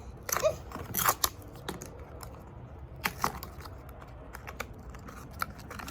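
A toy's blind-pack packaging being torn open and handled, with irregular sharp crinkles and clicks coming in a few short clusters.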